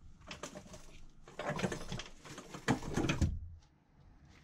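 Workshop handling noises: irregular scrapes and knocks as the Nissan Leaf motor is shifted about on its wooden stand. They cut off suddenly about three and a half seconds in.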